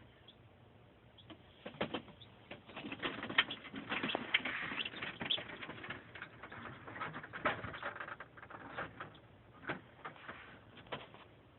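Newly hatched chicks peeping and moving about, with scattered taps and scratches. The sound is busiest from about two to six seconds in and thins out towards the end.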